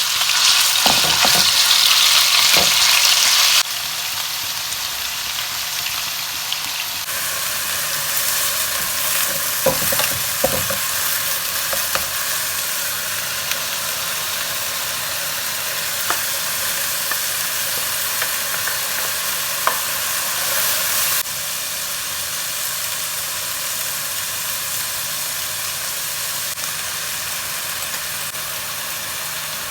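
Chicken masala filling frying and sizzling in a pan while it is stirred, with occasional light knocks against the pan. The hiss jumps abruptly in level a few times.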